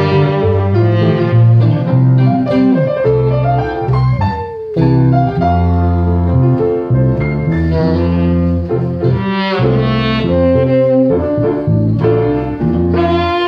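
Live instrumental trio: a saxophone plays the melody over piano and electric bass guitar, with long held notes.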